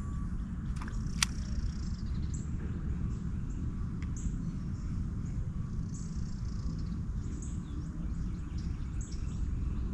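Birds chirping, short high calls repeated every second or two, over a steady low rumble. There is one sharp click about a second in.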